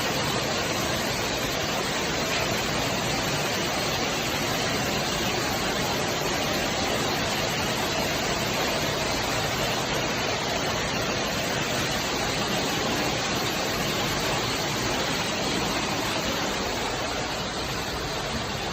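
Steady rushing of storm water during flash flooding from heavy rain.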